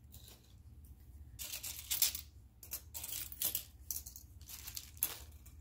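Loose metal costume jewelry clinking and jingling against a marble tabletop as pieces are shifted through a pile, in about half a dozen short jingles.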